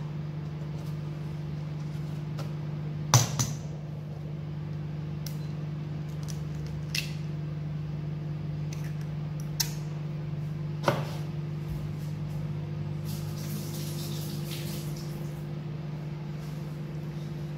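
Eggs tapped and cracked on the rim of a stainless-steel mixing bowl: a handful of sharp, separate knocks over a steady low hum.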